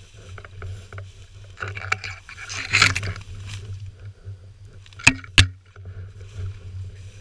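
Dry grass and brush swishing and rustling against a hunter walking through tall cover, loudest about three seconds in. About five seconds in there are two sharp knocks, half a second apart.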